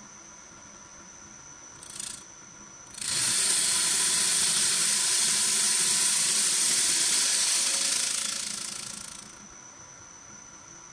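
Automatic wood bowl turning lathe cutting a spinning wooden bowl blank: a short hiss about two seconds in, then a loud steady hiss of about six seconds as the cutter strips shavings off the wood, tailing off near the end. A faint steady high whine runs underneath.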